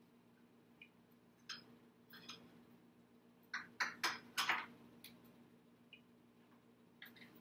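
Dishes and utensils clinking and knocking on a kitchen counter: a few scattered clicks, then a quick run of louder knocks about halfway through. A steady low electrical hum runs underneath.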